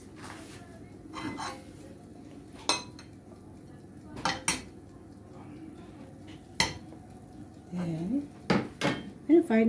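Steel ladle clinking and scraping against a frying pan and a bowl as cooked upma is scooped and packed, about six sharp separate clinks.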